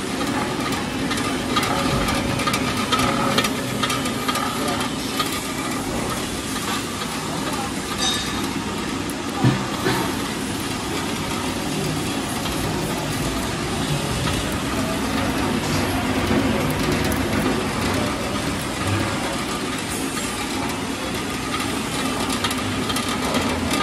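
Small belt-driven screw oil expeller running steadily under load as it presses seed, a constant mechanical hum. A single sharp knock comes about nine seconds in.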